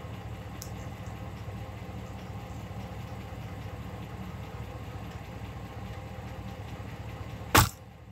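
A single sharp snap of a traditional bow being shot, near the end, over a steady low rumble.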